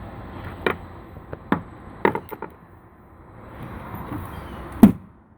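Four separate sharp knocks and clunks of hard objects being handled, the loudest near the end.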